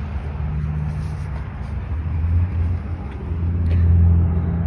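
Car engine running nearby: a low, steady rumble that grows louder about three seconds in.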